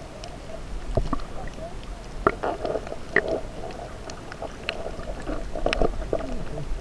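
Scattered sharp clicks and crackles heard underwater over a low steady rumble, the loudest clicks a little over two seconds in and near the six-second mark.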